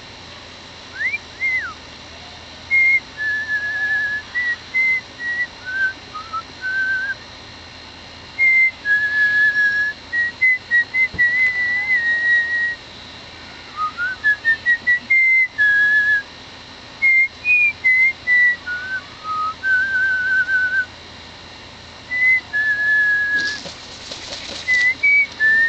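A person whistling a slow tune in clear held notes, phrase after phrase with short pauses between them.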